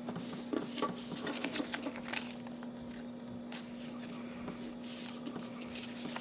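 A square sheet of printer paper being folded in half and creased by hand: light crinkling and scraping rustles, busiest in the first couple of seconds and sparser after, over a steady low hum.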